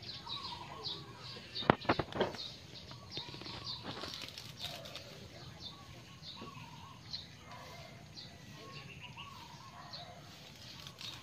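Leafy twigs rustling and crackling as they are handled, loudest in a short burst about two seconds in. Small birds chirp over and over in the background.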